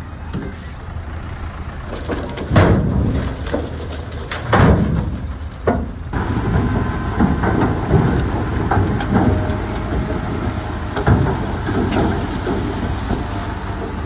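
Heavy diesel construction machinery running with a steady low rumble, with three loud surges about two and a half, four and a half and five and a half seconds in.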